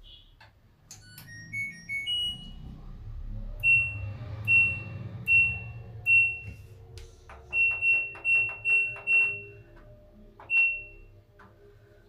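LG DirectDrive front-loading washing machine's control panel beeping as the wash program is set. A short tune of a few notes at different pitches comes first, then single short beeps all at one pitch, each led by a faint click as the program dial is turned and the buttons are pressed. Four beep evenly spaced, then a quicker run of five, then one more near the end.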